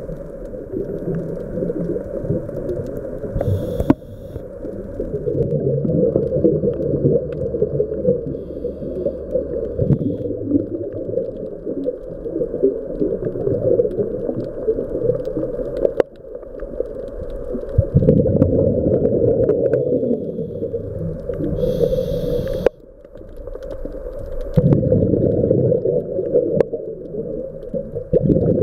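Scuba diver's breathing heard underwater through a camera housing: a muffled, bubbling rumble of exhaled air that rises and falls with each breath, broken by two short regulator hisses of the inhale, about four seconds in and again about two-thirds through.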